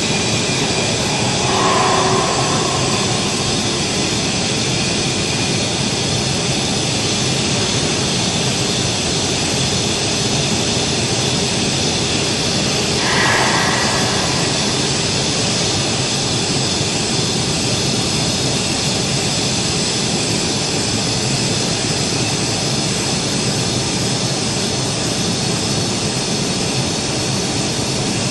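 Steady, loud machinery noise with no rhythm, and two brief higher-pitched sounds about 2 seconds and 13 seconds in.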